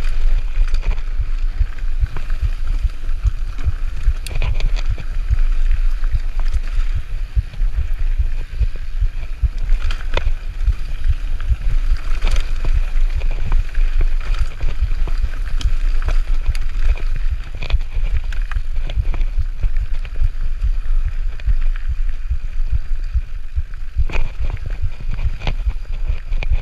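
Mountain bike descending a rough dirt and rock singletrack: a steady low rumble of tyres and wind on the microphone, with frequent clicks and rattles from the bike over bumps.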